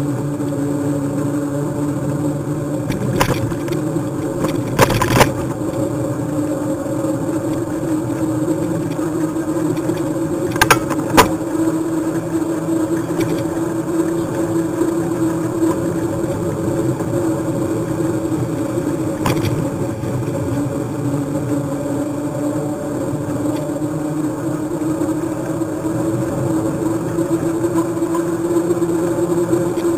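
A motor running at a nearly constant pitch, a steady droning hum, broken by a few short sharp knocks.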